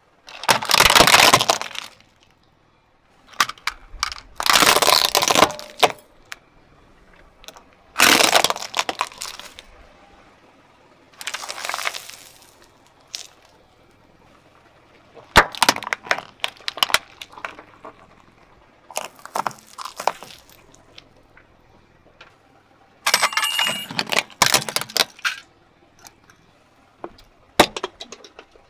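A car tyre rolling over and crushing plastic toys and other objects on asphalt, one after another. There are about eight bursts of cracking and crunching, each lasting a second or two, with short quiet gaps between them.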